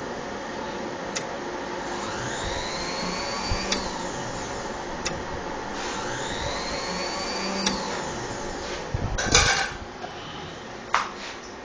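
Mini CNC machine's stepper motors running through moves: a whine rises in pitch and levels off twice as an axis speeds up, with sharp clicks between moves. A short, loud clatter comes about nine seconds in, and a last click near the end.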